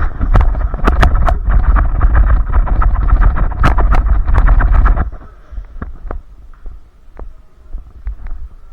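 Heavy rumbling and clattering on the body-worn microphone for about five seconds, then it drops away, leaving scattered sharp pops of airsoft guns firing across the field.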